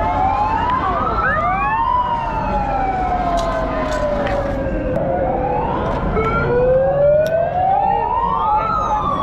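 A siren wails. Its pitch climbs over about two seconds and then sinks slowly over about four, and the cycle comes round twice. A second siren's glide crosses it near the start.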